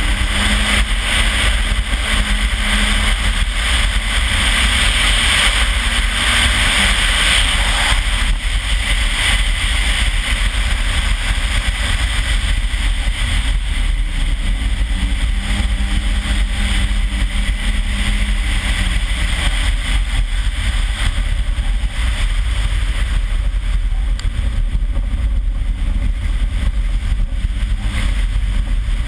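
Toyota RAV4's turbocharged 3S-GTE four-cylinder engine pulling at speed, its pitch holding, dropping and rising again as the driver works the throttle and gears, over the constant hiss of tyres ploughing through slush and water on ice. The splashing hiss is heaviest in the first several seconds.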